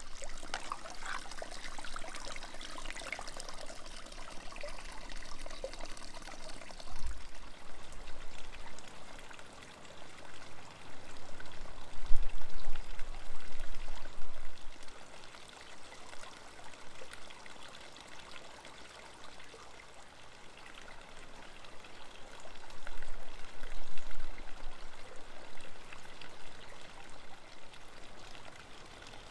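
Water running steadily, with a few dull low rumbles about 7, 12 and 23 seconds in.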